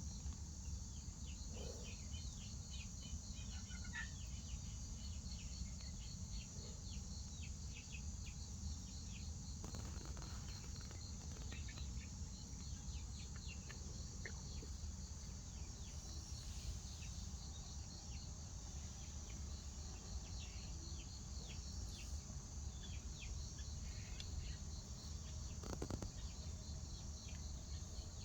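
Insects trilling steadily and high, with many short scattered chirps over a constant low rumble.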